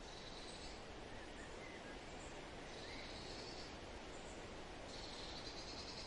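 Faint forest ambience over a steady hiss: an insect buzzes high in bursts of about a second, roughly every two seconds, and a few faint bird chirps come a second or two in.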